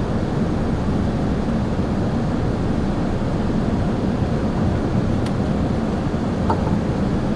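Steady rumble of airflow and engines heard inside the cabin of an Airbus A380, with a couple of faint ticks near the end.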